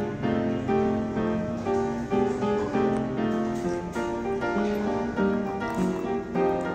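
Instrumental background music: a melody of short notes at a steady level.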